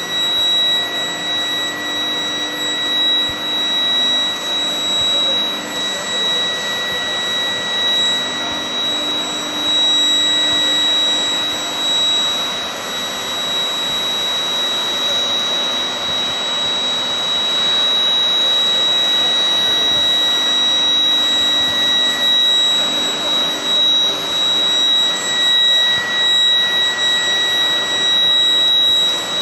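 Induction heating line for steel bulldozer blades running: a steady high-pitched whine with a higher overtone from the induction heater, over a continuous broad rushing machine noise.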